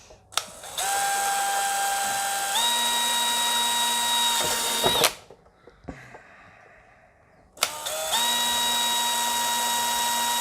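DeWalt power drill boring two holes through a motorcycle windscreen for cable ties. Each hole is one steady run of motor whine that steps up in speed shortly after starting and cuts off sharply, the first lasting about four seconds and the second starting about seven and a half seconds in.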